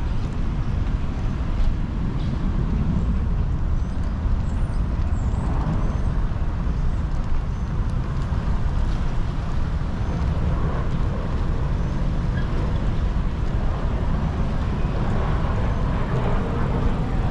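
Steady low rumble of wind on the microphone and wheels rolling over paving, with no distinct events.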